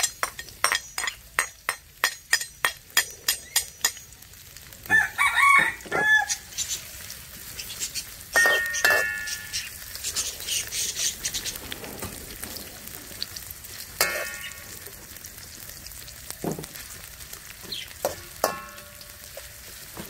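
A metal slotted spoon knocks repeatedly, about three or four times a second, as sliced shallots are scraped from a bowl into hot oil in a steel wok, and the shallots then fry with a faint sizzle while being stirred. A rooster crows about five seconds in and again around nine seconds, with shorter fowl calls later.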